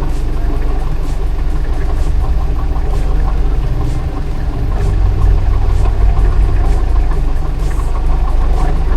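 Four-wheel drive's engine running steadily, growing louder about halfway through.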